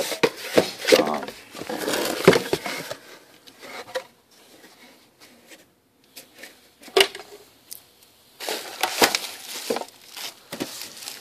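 Cardboard box and bubble-wrap packaging being handled, with rustling and sharp clicks and knocks. The handling is busy at first, goes quiet in the middle apart from one sharp knock, and picks up again near the end.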